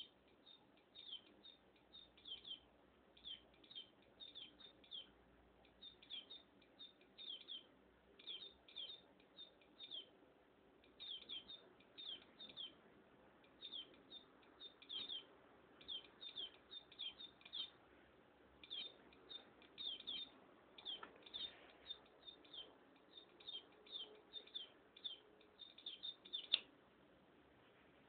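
NE555-based electronic bird-chirp circuit sending out short, high-pitched chirps that sweep downward, in quick clusters of two to four, repeating over and over. Near the end there is a sharp click, and after it the chirps stop.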